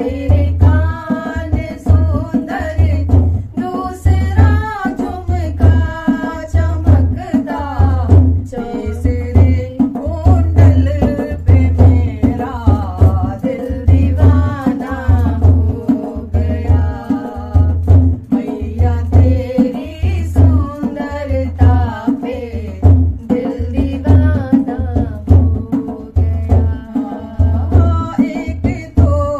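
Women singing a Hindi devotional kirtan to the goddess Durga, with a hand drum keeping a steady beat underneath.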